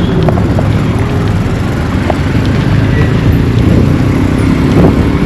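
Small engine of a motorised tricycle running close by, a steady low droning buzz.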